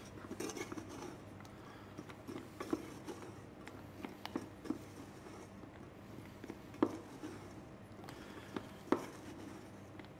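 Wooden spatula stirring nuts in a stainless steel saucepan: faint scraping with scattered knocks and clicks, the sharpest about seven and nine seconds in. The nuts are being caramelized in sugar that is still dry and sandy around them.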